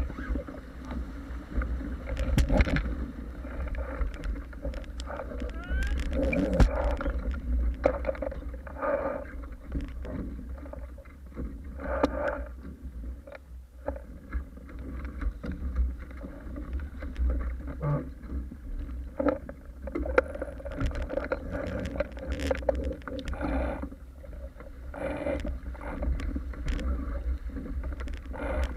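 Water rushing and splashing along the hulls of a Paper Tiger catamaran sailing fast, with irregular slaps of waves and spray, over a steady low wind rumble.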